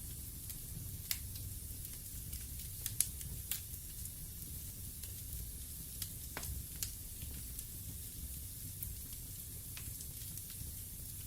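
Wood fire burning in a fireplace: a steady hiss and low rumble, with scattered sharp crackles and pops from the logs, the loudest a few seconds in.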